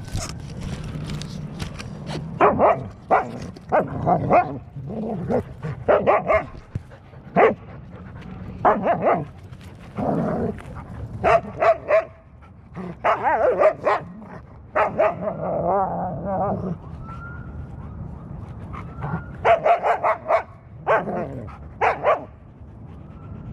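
Dogs barking in play: repeated short barks in clusters of two or three, with a wavering, drawn-out call about two-thirds of the way through.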